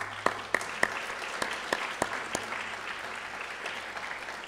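Audience applauding, with a few sharp individual claps standing out over the first couple of seconds.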